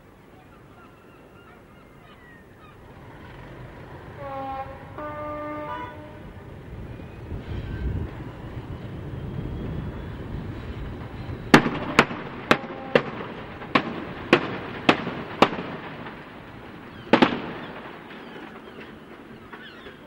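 Three Class 73 electro-diesel locomotives crossing the harbour bridge, their running growing louder, with a horn sounding twice about four seconds in. Past the middle come eight sharp bangs about half a second apart and one more a little later: railway detonators exploding under the wheels.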